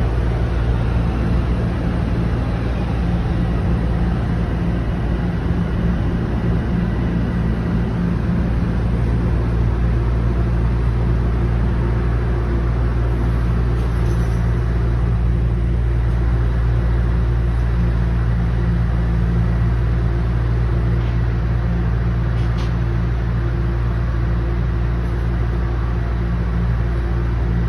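Toronto Rocket subway train running steadily, heard from inside the car: a continuous low rumble with a steady motor hum.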